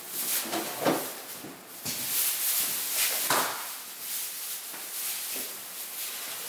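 A refrigerator door is opened and groceries are handled in a kitchen: a few short knocks and clatters as items are moved and set down, with rustling noise between them.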